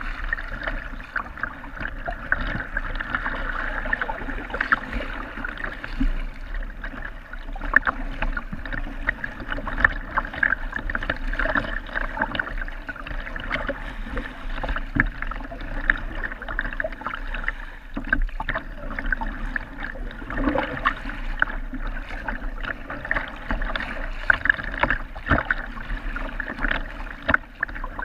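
Sea water lapping, gurgling and slapping against a sea kayak's hull as it is paddled through chop, with many short irregular splashes.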